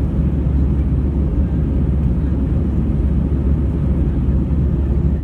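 Steady low rumble of a jet airliner in flight, its engines and airflow heard from inside the passenger cabin; it cuts off abruptly at the end.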